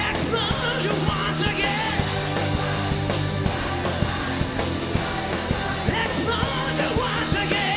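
Live rock band playing: a male singer belting over electric guitar, drums and keyboards, with a steady drum beat.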